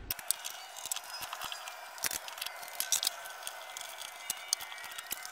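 Hands working rubber weatherstrip and spring clamps around a car's rear hatch opening: scattered light clicks, taps and rubbing over a steady hiss.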